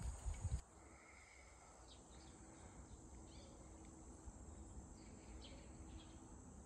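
Quiet forest ambience: a steady high-pitched insect drone with a few short bird chirps scattered through it. A few low bumps sound in the first half-second, then stop abruptly.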